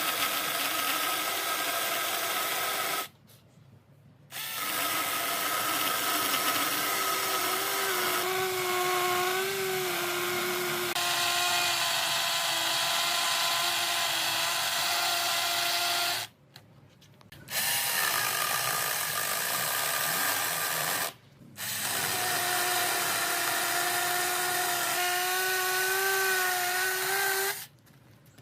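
Handheld electric power tool working wood, running in four long stretches with short stops between. Its whine wavers and dips in pitch as it bears into the work.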